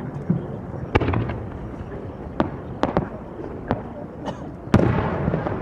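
Aerial firework shells bursting: five sharp bangs at irregular intervals, the loudest near the end, over a steady low rumble of echoing booms.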